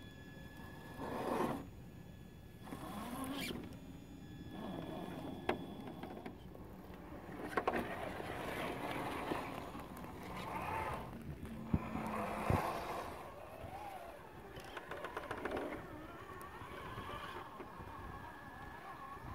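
Traxxas TRX-4 RC scale crawler climbing rock: its 21-turn Titan brushed motor and gear train whine as it creeps and surges, with tyres scraping on the stone. Several sharp knocks against the rock come through the middle of the climb.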